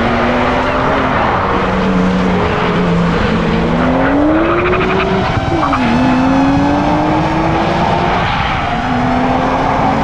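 1992 Nissan Skyline GTS-t's turbocharged straight-six accelerating hard. Its revs climb, fall sharply at an upshift about five and a half seconds in, then climb again in the next gear.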